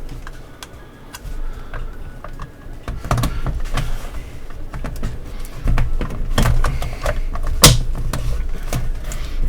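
Hard plastic pieces of a NECA Pillar of Souls figure base handled and pressed together: irregular clicks and knocks over low handling thumps, with one loud click about three-quarters of the way through.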